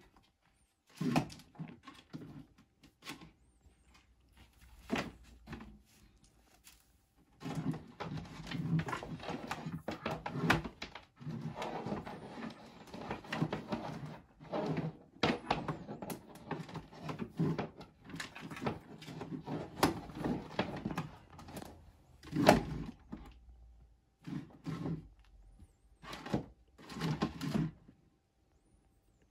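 Irregular knocks, thuds and rustling as a peritoneal dialysis machine is handled and arranged on a small bedside table. The noises come in short bursts, get busier from about seven seconds in, and the loudest knock is just past twenty seconds.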